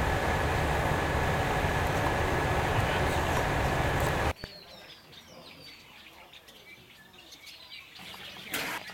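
Running noise of a moving train heard from on board, loud and steady with a high ring held over it. It cuts off abruptly about four seconds in, giving way to quieter outdoor air with small birds chirping and a brief louder sound near the end.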